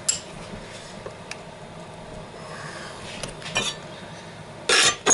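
Metal tools and engine parts clinking and clicking while the drive-sprocket fastening is tightened: scattered light clicks, then a louder rattling clatter near the end.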